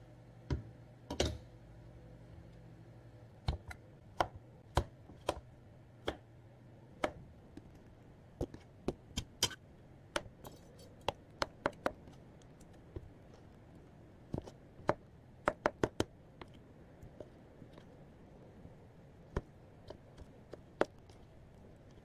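Kitchen knife slicing a peeled melon into chunks, each stroke ending in a sharp click of the blade against the cutting board, in an irregular series of dozens of clicks. A longer, louder knock comes about a second in.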